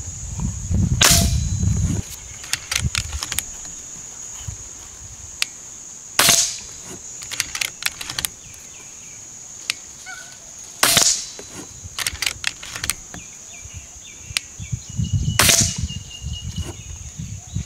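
Gare Falcon fully regulated PCP air rifle firing four sharp shots about four and a half seconds apart. Between shots come short runs of clicks as the action is cycled to load the next pellet.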